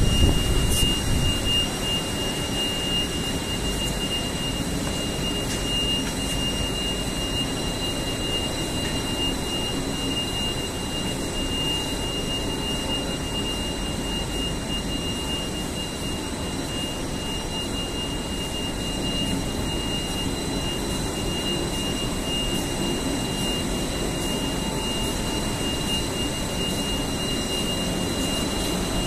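Steady running noise of an industrial film laminating line for metal coil, its rollers and drive motors running, with a constant high-pitched whine over it.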